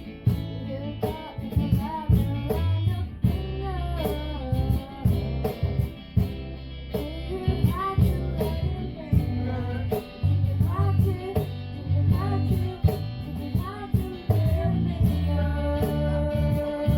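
Acoustic guitar strummed in a steady rhythm while a person sings a melody over it.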